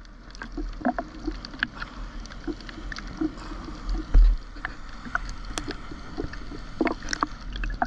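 Seawater sloshing and lapping against a GoPro held at the surface in its waterproof housing, heard muffled through the housing, with many small ticks and splashes and one louder dull thump about four seconds in.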